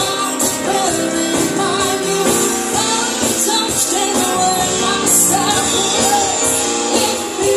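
Live band playing a pop song: a woman singing into a microphone over keyboard and electric guitar, with a steady beat.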